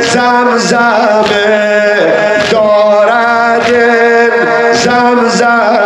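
A male voice singing a Persian noha (mourning lament) in long, drawn-out notes. Sharp slaps of chest-beating sound on a steady beat about every 1.2 seconds.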